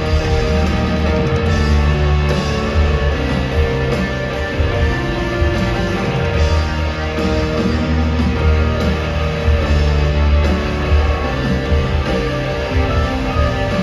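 Rock band playing live in an arena: electric guitar, bass and drums in a loud instrumental passage with strong bass.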